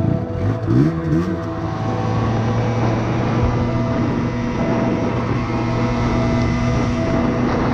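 Yamaha TZR125's two-stroke single-cylinder engine revving up in two quick rising sweeps about a second in as the bike pulls away, then running steadily under way, with the hiss of tyres on the wet road and wind.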